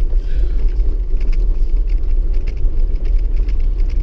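Toyota Land Cruiser 80 Series (HDJ80) heard from inside the cab as it crawls over a rocky track: a steady low rumble of the turbo-diesel and running gear, with scattered knocks and rattles as the wheels go over stones.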